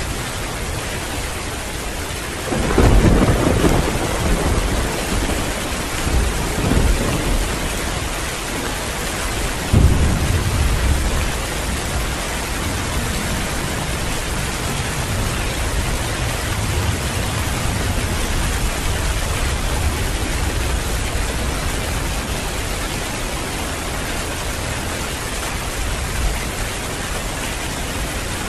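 Heavy rain falling steadily with rolls of thunder: a low rumble about three seconds in, another around six to seven seconds, and a sharper clap about ten seconds in that rumbles on for several seconds.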